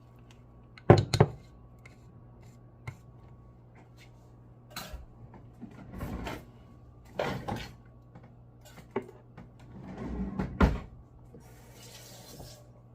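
Kitchen utensils clattering: a spoon knocking and scraping in a mixing bowl of thick hush puppy batter. The knocks are scattered, the loudest about a second in, over a steady low hum.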